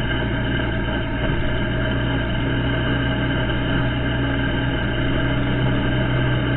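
ATV engine running at a steady pace as the four-wheeler drives along a dirt trail, an even drone with no change in pitch.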